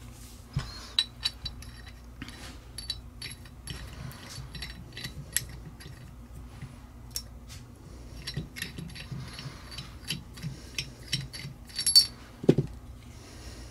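Light metallic clicks and clinks as a Helicoil thread insert is twisted into a tapped hole in a tractor rear axle bearing hub with a hand installation tool, steel tool against the hub. The loudest clinks come near the end, followed by a dull knock.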